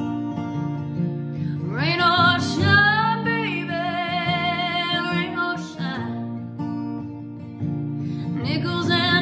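Acoustic guitar strummed steadily under a woman's singing voice, which slides up about two seconds in into a long held line, drops out, then comes in again near the end.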